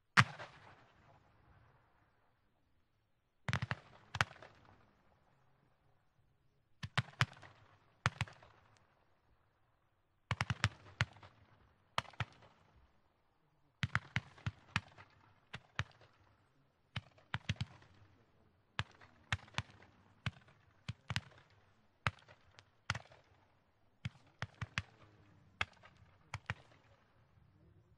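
A row of seven 1.5-inch Silver Glittering & Purple Tip roman candles firing. Sharp shots come in small groups every second or two, each with a short echo, and they come more often in the second half.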